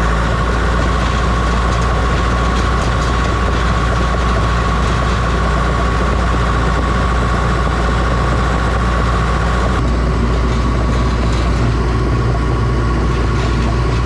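John Deere 650H crawler dozer's diesel engine running steadily, with a steady high whine that drops away about ten seconds in.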